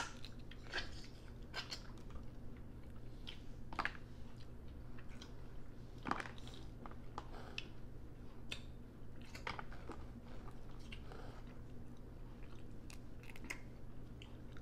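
Close-up chewing and smacking while eating steamed blue crab and shrimp, with sharp crunches and clicks every second or two. A faint steady hum lies underneath.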